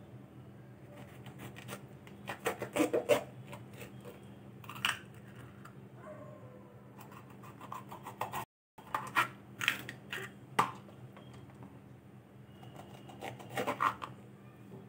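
Kitchen knife cutting through fresh green bell peppers (capsicum), crisp cuts and crunches coming in several short clusters. A low steady hum runs underneath.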